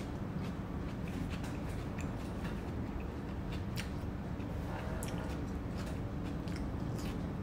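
A person chewing tomato slices eaten by hand, with short wet mouth clicks and smacks scattered irregularly over a steady low background hum.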